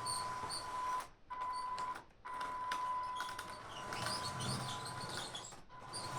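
Small electric drive motor of a 3D-printed 1:16 scale RC half-track running with a steady high whine, cutting out briefly twice in the first couple of seconds as the model stops and starts again. Light clicking from the running gear comes through alongside it.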